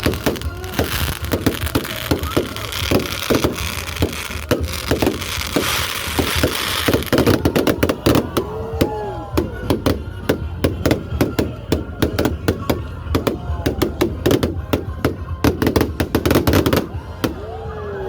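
Fireworks going off: a string of sharp bangs that grows into a dense rapid barrage about halfway through and stops shortly before the end, with people's voices exclaiming among the bursts.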